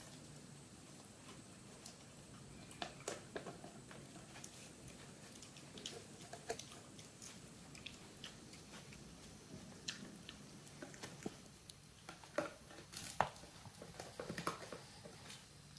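Italian greyhound puppy gnawing and chewing a pig ear: irregular crunches and bites, coming thicker in the last few seconds.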